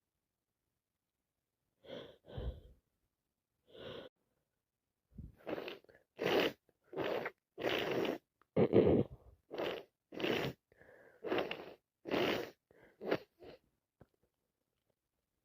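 A woman with a heavy head cold sneezing and gasping in a rapid fit of about a dozen short, forceful bursts, after a few faint breaths.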